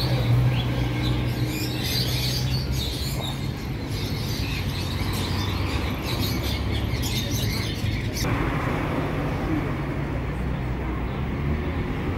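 Small caged birds chirping over a steady hum of street traffic. About eight seconds in the chirping stops and the wash of passing road traffic takes over.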